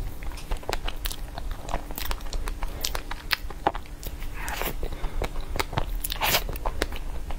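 Close-miked mouth sounds of eating a snow mochi (xuemeiniang), a glutinous-rice dumpling: bites, chewing and lip smacks, heard as many small irregular clicks.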